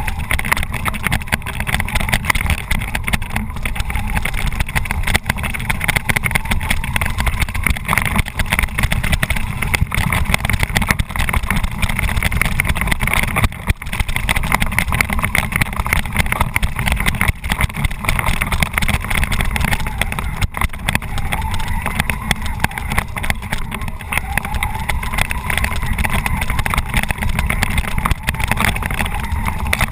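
Tamiya Bullhead RC monster truck heard from on board: its electric motors and gearboxes whine as it drives along a rough dirt track, over a constant low rumble from the chassis jostling. The truck is running on nearly empty batteries.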